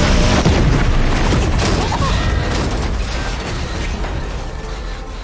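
Loud dense sound effects of a magic spell working on a time ship: a deep rumble with mechanical creaks and sharp pops, fading away near the end.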